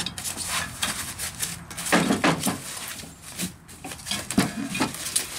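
Foam packing wrap rustling and crinkling as it is unfolded by hand, with a few light knocks of hard parts shifting.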